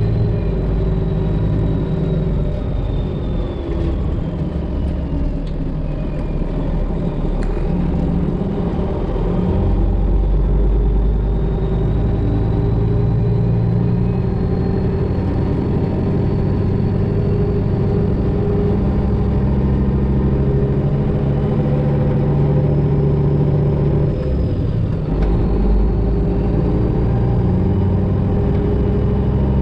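Semi truck's Detroit Diesel 12.7-litre engine running as the truck creeps along at low speed, its pitch shifting up and down several times and getting a little louder about ten seconds in. A faint high whine falls and then rises over it.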